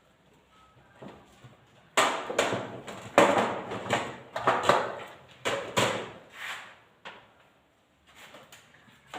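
A run of loud, irregular knocks and clatters, about ten in five seconds, starting about two seconds in, then a few fainter knocks near the end.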